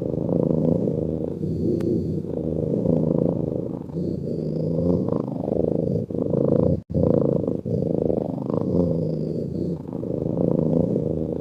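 Domestic cat purring: a continuous low rumble that swells and eases with each breath. It cuts out briefly about seven seconds in.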